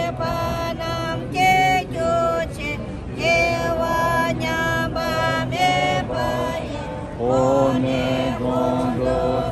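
Tibetan prayer sung as a melodic chant by a group of voices, in short held syllables that step up and down in pitch; lower voices come to the fore about seven seconds in.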